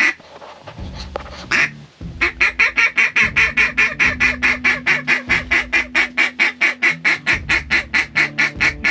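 A hand-blown waterfowl call: one short note, then from about two seconds in a fast, steady run of short notes, about six a second, that goes on to the end.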